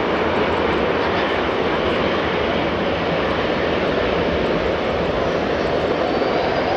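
Emirates Boeing 777-300ER's GE90 jet engines rolling along the runway: a steady, even jet noise, with a faint high whine coming in near the end.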